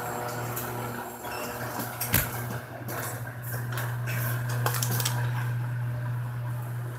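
Household handling clatter: a few sharp clinks and knocks, the loudest about two seconds in, over a steady low hum.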